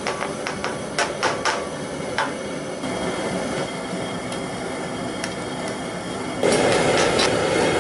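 Quick metal taps and clinks of a pan and utensil against an aluminium boil pot over the steady rush of a propane cooker burner under the boiling pot. The rush jumps louder about six and a half seconds in.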